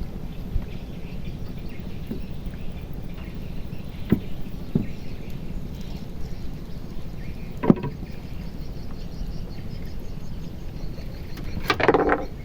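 Steady low rumble with a few sharp knocks scattered through it and a short rattle near the end.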